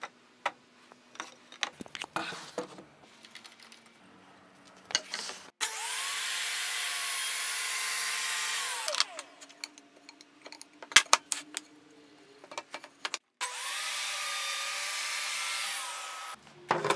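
Table saw with a crosscut sled making two crosscuts, each about three seconds of steady blade noise with a motor whine, squaring the ends of wooden stretchers. Short clicks and knocks from handling the boards and sled come before and between the cuts.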